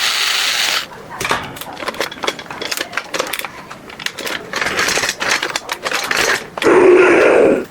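Plastic toy parts being handled, with a run of irregular clicks, rattles and short scraping bursts. Near the end comes a loud, steady sound lasting under a second.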